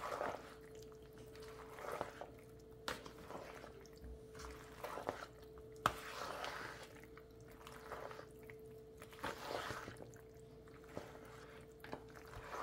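Wet squishing of mayonnaise-coated pasta shells and chicken being stirred with a plastic spoon in a plastic bowl, in repeated strokes about once a second. Now and then the spoon clicks sharply against the bowl.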